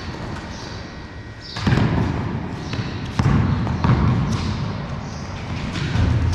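A basketball dribbled on a bare concrete floor in a large empty hall: a handful of heavy bounces, starting about a second and a half in.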